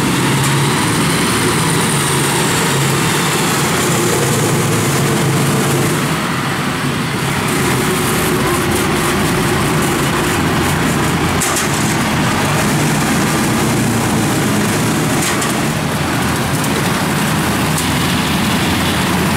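Engine of a tracked rice-hauling carrier (máy cộ) running steadily as the machine drives along.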